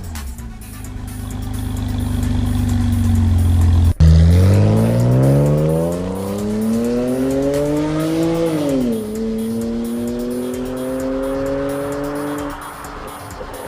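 BMW E60's N52 straight-six engine through a valved aftermarket exhaust and header, running steadily, then accelerating with a rising pitch after an abrupt cut about four seconds in. A gear change drops the pitch about nine seconds in, and the engine then pulls on evenly until easing off near the end.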